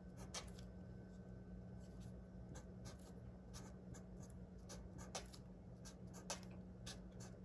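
Black marker writing letters on paper: a series of faint, short pen strokes over a low steady hum.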